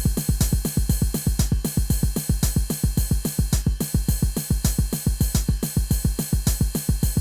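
EGDR909 software drum machine, an emulation of the Roland TR-909, playing a steady electronic beat: deep kick drum in regular groups under a fast, even run of hi-hat and snare strokes, about eight a second.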